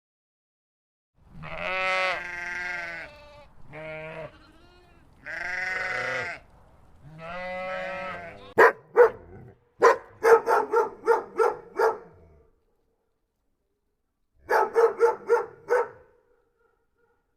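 Four long, wavering bleats from a farm animal, then a dog barking in quick runs of short barks, with a second run of barks near the end.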